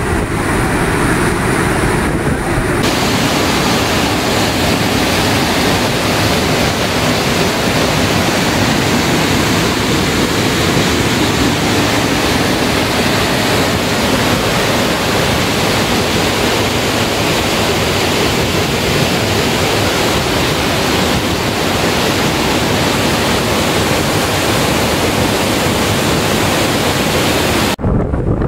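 Floodwater rushing through the open spillway gates of a dam: loud, steady rushing water, breaking off briefly near the end.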